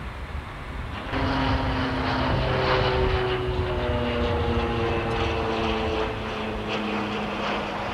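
Boeing 707-138B's four Pratt & Whitney JT3D turbofans running as the jet taxis past, the sound getting abruptly louder about a second in. A rushing noise is overlaid with several whining tones that slide slowly downward.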